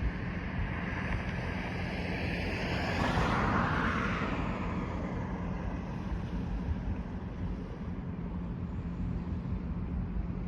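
Sea waves washing onto a sandy beach, one surge swelling and fading about three to four seconds in, over low wind rumble on the microphone and a steady low hum.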